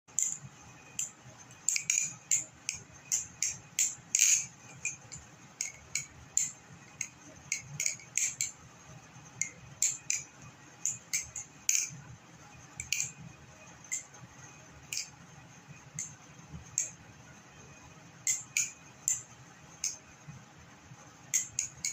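Kraken balisong (butterfly knife) being flipped: its metal handles and blade clack together in a run of sharp, irregular clicks, often several a second, each with a light metallic ring.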